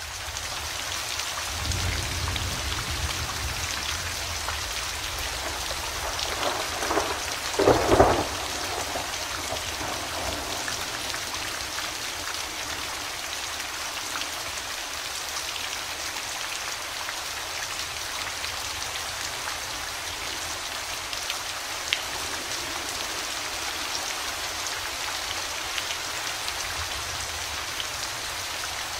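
Steady rain falling, with thunder: a low rumble about two seconds in, then a crackling thunderclap about eight seconds in, the loudest moment.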